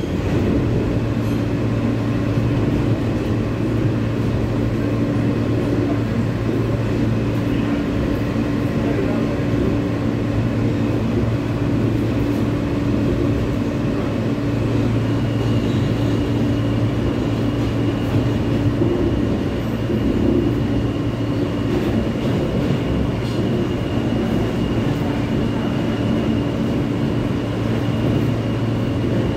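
R160 subway car running at speed, heard from inside: a steady rumble of wheels on rail with a low hum from the traction motors. A thin, high steady whine comes in about halfway through.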